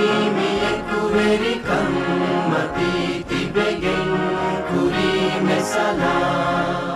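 Music: a choir singing long held notes with instrumental accompaniment.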